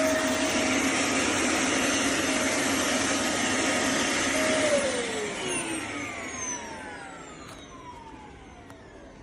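Bagless cyclone vacuum cleaner running with a steady motor whine. About four and a half seconds in it is switched off, and the whine falls in pitch and fades as the motor spins down.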